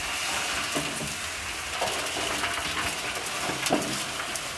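A compost bin being turned, its contents churning with a steady crackling hiss and scattered clicks. The noise starts abruptly and drops off near the end.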